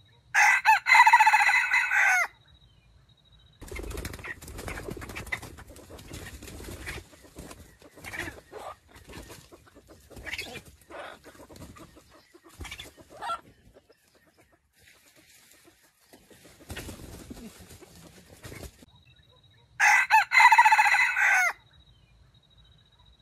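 A wild jungle chicken rooster (red junglefowl) crowing twice, each crow about two seconds long, one just after the start and one near the end. Between the crows there is quieter rustling with a few short clucks.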